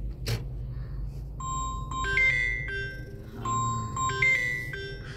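A tinkling, bell-like tune of short held notes, like a chime or music-box melody, over the low steady rumble of the car driving.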